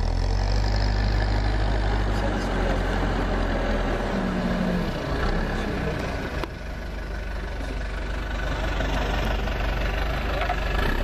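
Diesel engine of a backhoe loader running at a steady idle, a low even hum, with voices over it.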